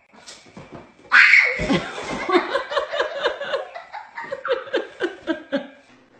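A person laughing hard: a loud outburst about a second in, then rapid short bursts of laughter that trail off.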